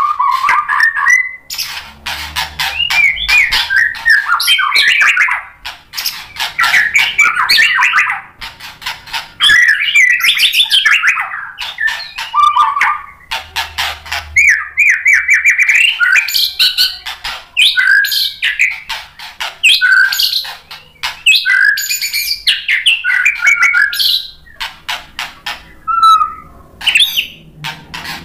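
White-rumped shama (murai batu) singing a long, varied song, mixing rapid chattering runs with clear whistled phrases and short pauses between phrases.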